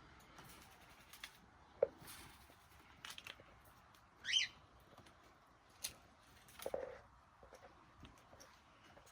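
A small caged parrot gives one short, wavering chirp about four seconds in, among scattered faint clicks and rustles.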